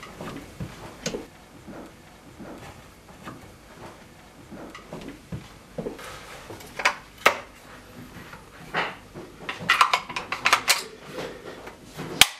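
A shotgun forend being wiped down with a cloth and handled: soft rubbing with scattered light clicks and knocks of wood and metal. Two louder knocks come a little past halfway, then a quick run of sharp clicks about ten seconds in.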